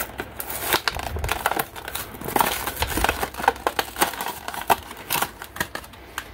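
Stiff plastic blister packaging of a Mattel die-cast toy car being opened, with irregular crinkling and crackling clicks throughout.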